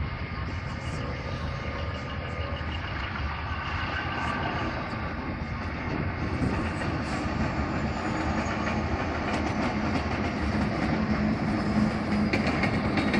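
A Belgrano Sur line diesel train approaching and passing a level crossing. Its engine and wheel noise grows steadily louder, and a low, steady engine drone comes in about halfway through as the locomotive nears.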